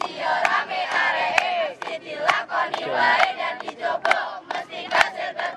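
A group of schoolchildren shouting and calling out together, many voices overlapping, with sharp clicks scattered through.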